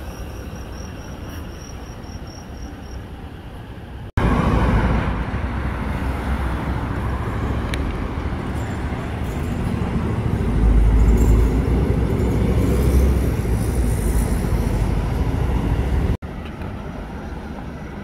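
City road traffic noise: vehicles running past. The noise jumps abruptly louder about four seconds in and drops back just as abruptly near the end, with a deep rumble of a heavy vehicle such as a bus passing in the middle.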